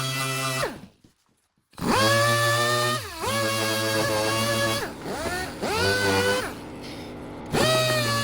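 Power sander running on cured body filler with a steady whine, switched off about a second in so the whine falls away, then started again. Its speed and pitch sag and pick up several times while it works.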